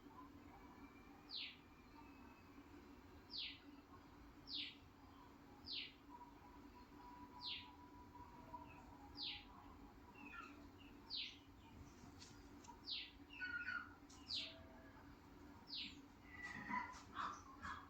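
A bird chirping over and over: short, high chirps that fall in pitch, one every second or two, busier near the end, over a faint steady hum.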